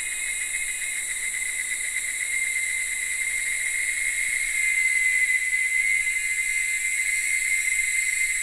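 A dusk chorus of insects: several high, steady tones layered together, with no low sound under them, growing a little louder about halfway through.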